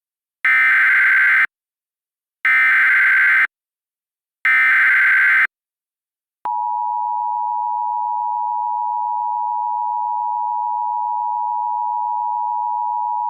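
Three bursts of Emergency Alert System SAME header data, each about a second long with a second's pause between. They are followed about six and a half seconds in by the steady two-tone EAS attention signal, which holds to the end.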